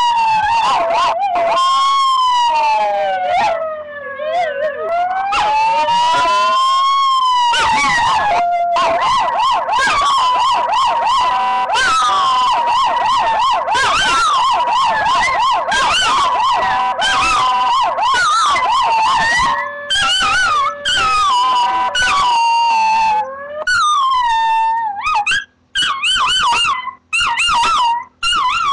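A siren played loud, wailing slowly up and down and then wavering, with a chihuahua howling along with it. Near the end the sound breaks up into short, falling howls with gaps between them.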